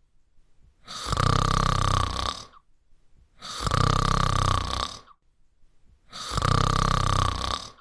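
A person snoring: three loud snores about two and a half seconds apart, each lasting over a second and a half, with faint breathing between them.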